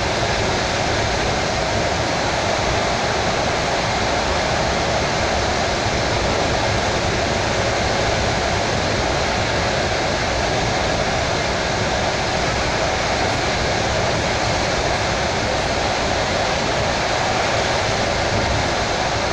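Steady running noise of a suburban electric train (elektrichka) at speed, heard from inside the carriage: an even, continuous rush of wheels on rails and air.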